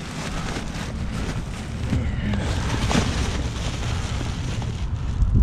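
Wind buffeting the microphone in a steady low rumble, with scattered rustles and knocks from boots and clothes being handled and sorted.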